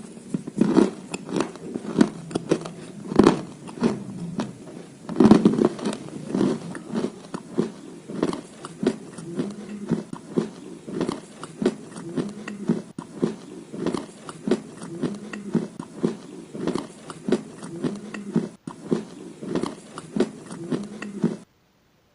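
A person biting and chewing clay crumbles close to the microphone. A few loud crunchy bites in the first several seconds give way to steady chewing at about two crunches a second, and the sound cuts off suddenly near the end.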